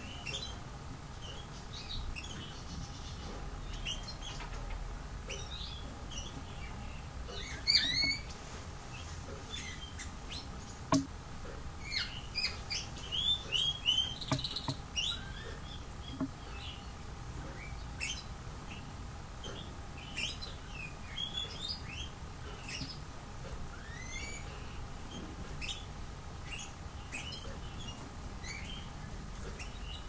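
Small songbirds chirping: many short, high chirps and quick sliding calls scattered throughout, busiest between about a quarter and half way through. One sharp tap about eleven seconds in.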